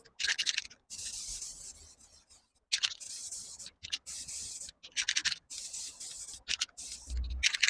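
Aerosol spray-paint can hissing in a string of short bursts, each up to about a second long, as a coat of matte grey paint is sprayed onto a motorcycle fork leg.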